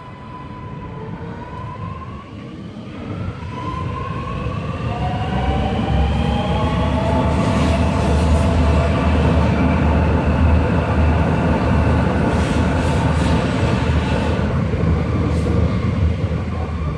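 Alstom Metropolis driverless metro train pulling out and accelerating past, its traction motors whining in several tones that rise in pitch together over low running rumble. It grows louder over the first six seconds, then runs steadily loud as the carriages go by, with a few sharp clicks from the wheels.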